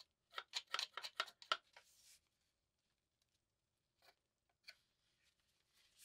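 Faint clicks and light knocks of a folding pruning saw being handled, its steel blade swinging open on the pivot in the wooden handle: a quick run of clicks in the first two seconds, then two soft ticks about four and five seconds in.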